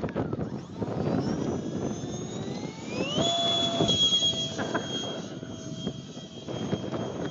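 The 64mm electric ducted fan of an RC foam F-22 jet spooling up in a rising whine, then holding a steady high whine from about three seconds in. Gusty wind rumbles on the microphone underneath.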